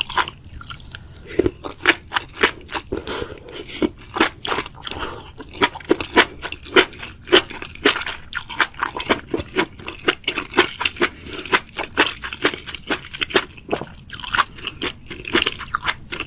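Crunchy food being chewed with its mouth-sounds: a steady run of crisp crunches, about two a second.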